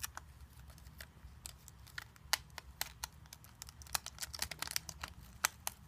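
Soft, irregular clicking of a netbook's keyboard keys as fingers press a strip of Scotch tape down between them. The clicks come more often from about two seconds in.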